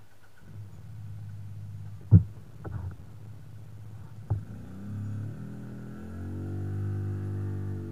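Land Rover Discovery engine running at low revs as the SUV crawls over rocks, picking up revs about five seconds in and holding there. Sharp knocks sound over it, the loudest about two seconds in and another about four seconds in.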